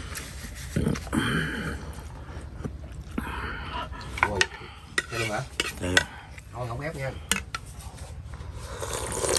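A metal spoon clinking and scraping against a large ceramic bowl as the last broth and noodles are scooped out, with a scattering of sharp, separate clinks.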